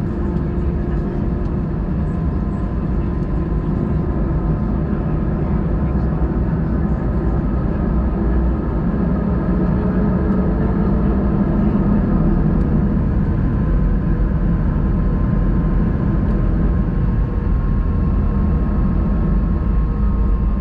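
Airbus A319 jet engines and cabin air running, heard from inside the cabin: a steady loud hum with several held tones. About halfway through, one tone begins to rise slowly in pitch.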